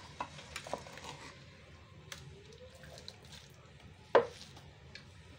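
A metal spoon knocking and scraping in a pot of cooked cassava fufu, with a few light clicks and one sharp clank about four seconds in.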